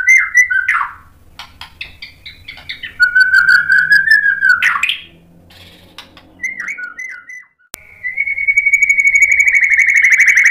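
White-rumped shama (murai batu) singing: loud whistled phrases broken by sharp clicks, then, after a brief break about two-thirds in, one long, fast-trilling note held steady.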